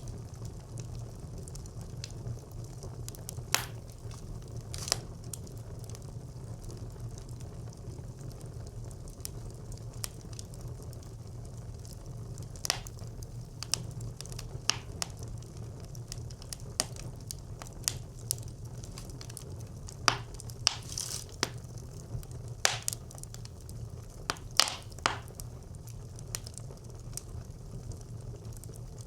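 Wood fire burning in a brick clay stove: a steady low rumble of flames with scattered sharp crackles and pops, coming more often in the second half.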